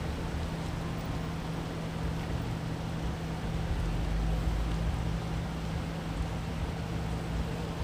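A vehicle engine idles steadily with a low hum, while wind rumbles on the microphone and swells about four seconds in.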